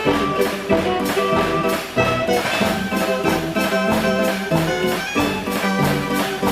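105-key Decap fairground organ playing a brassy, jazzy dance tune, its pipes sounding like saxophones, trumpets and trombones over a steady beat.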